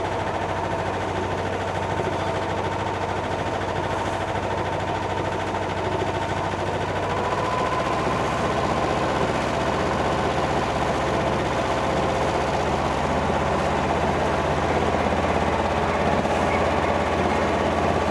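A sailboat's engine running hard in reverse to set the anchor, a steady mechanical drone. About halfway through the revs rise a little and it grows slightly louder.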